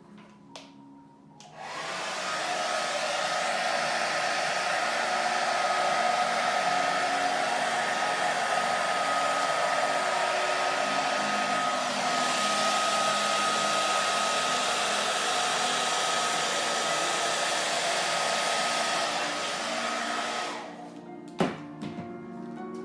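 Hand-held hair dryer running steadily with a constant whine, switched on about a second and a half in and off near the end, blowing wet acrylic pour paint across the canvas.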